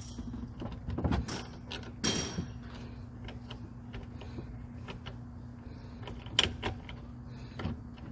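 Scattered metallic clicks and knocks of hand tools at work on the car, with a brief scraping rattle about two seconds in, over a steady low hum.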